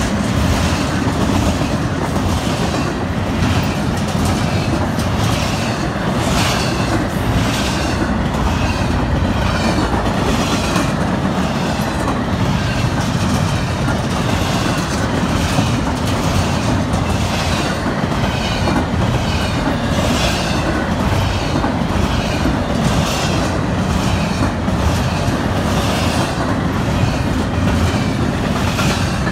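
Double-stack container freight train passing close by: the steel wheels of the well cars rumble steadily on the rails with a regular clacking over the rail joints.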